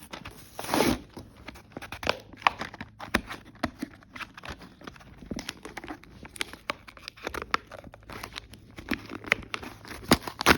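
Hot Wheels toy car packaging being torn and crinkled open by hand: irregular crackles and rips, the loudest about a second in.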